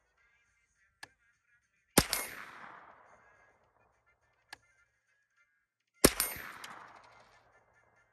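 Two single shots from an AR-15-style rifle, about four seconds apart, each echoing off the surrounding hills as it dies away. Faint short clicks come before and between the shots.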